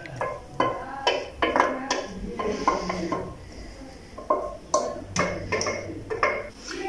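Background music of hand-drum strokes with short ringing tones, a few strokes a second.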